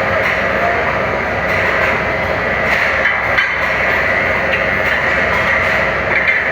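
Grinding wheel sharpening the teeth of a sawmill band saw blade: a steady grinding noise over the running machine.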